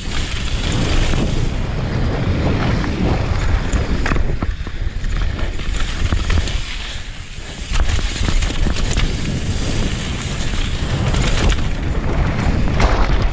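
Downhill mountain bike descending a loose gravel trail at speed: wind buffeting the microphone over the crunch of tyres on gravel and a steady clatter of the bike jolting over stones, easing briefly twice.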